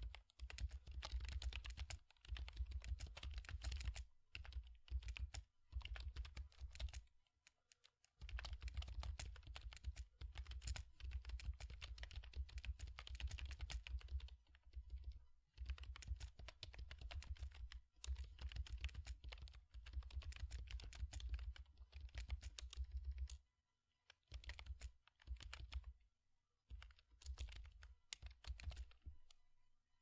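Typing on a computer keyboard: fast runs of key clicks broken by short pauses, turning into shorter, scattered runs near the end.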